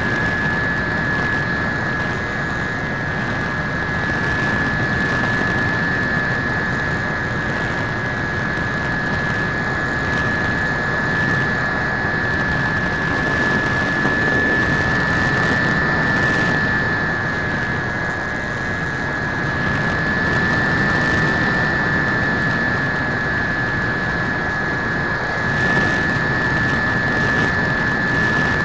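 RC foam jet's motor and propeller in flight, picked up by the onboard camera: a steady high whine that wavers slightly in pitch, over loud rushing wind noise from the airflow.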